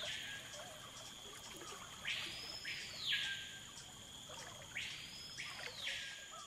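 Rainforest insects and birds: a harsh call that sweeps up in pitch, holds and drops back, heard twice about three seconds apart, over a steady high-pitched insect whine and faint bird chirps.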